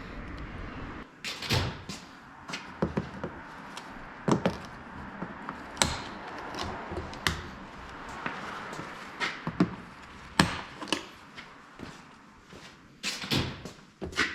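Irregular knocks, clicks and clatter of hand work on a car: tools and parts being handled, a few sharp impacts louder than the rest.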